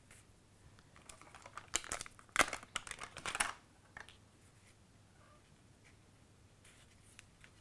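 Cardstock strips being handled and bent, making a run of crinkling, rustling paper noises that lasts about two and a half seconds and is loudest near the middle.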